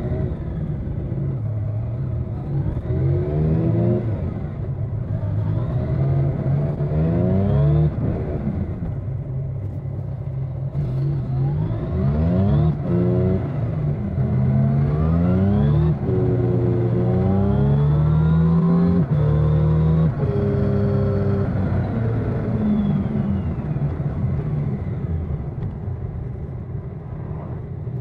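Yamaha XSR900's inline three-cylinder engine pulling hard several times, its note rising with each pull and dropping at each gear change. About twenty seconds in it falls away as the bike slows, then settles to a lower, steadier note.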